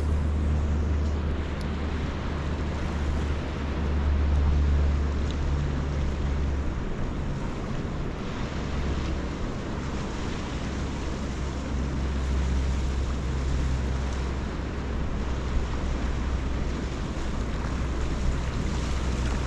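Wind buffeting the microphone with a low rumble, gusting strongest about four seconds in, over a steady wash of small waves on the beach.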